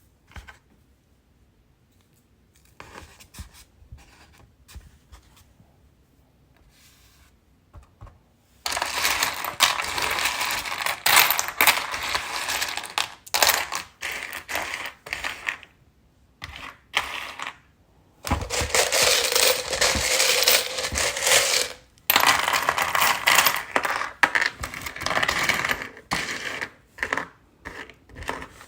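Loose gems clattering and rattling together: a few light clicks at first, then from about a third of the way in a loud, dense jangle that stops and starts again several times.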